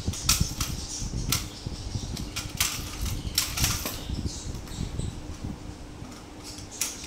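Kitten's paws and claws scrabbling on a marble floor: scattered light taps and short scrapes, thickest in the first four seconds, over a steady low hum.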